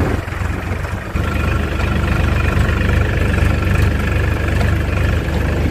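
Powertrac tractor's diesel engine running steadily, a little louder from about a second in.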